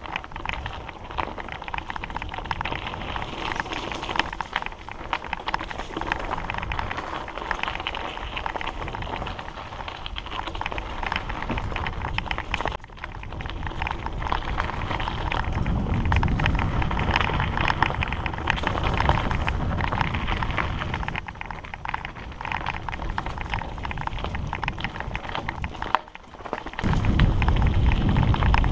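Hardtail mountain bike riding fast down a dirt singletrack strewn with dry leaves: tyres crackling over the leaves and the bike rattling, with wind buffeting the microphone. The wind gets louder midway and is heaviest near the end.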